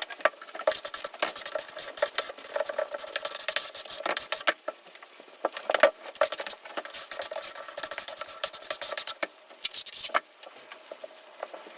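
Steel trowel scraping and spreading thinset mortar in repeated strokes, with pauses about halfway through and near the end.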